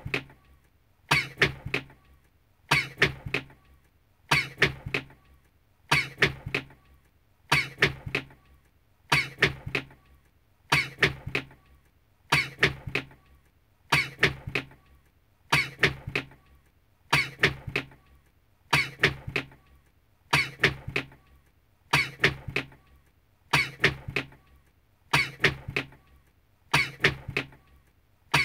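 A man's recorded sneeze looped over and over, repeating evenly about once every 1.6 seconds, each sneeze followed by a couple of quick sharp hits.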